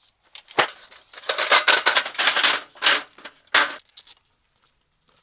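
Aluminium roll-top camp table being taken from its nylon carry bag and set up: a single knock, then a couple of seconds of rattling slats and rustling fabric that stops about four seconds in.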